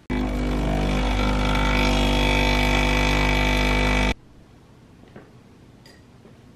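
Espresso machine's pump buzzing steadily as it pulls a shot into a mug, starting and cutting off abruptly after about four seconds. A few faint clicks follow.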